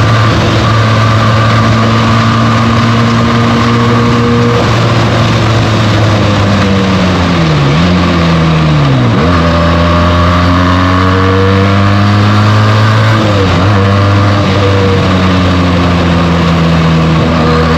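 Benelli TNT 300's parallel-twin engine with its stock exhaust, running under way at steady revs. Its pitch dips sharply and climbs back twice, around the middle and again about three quarters of the way through.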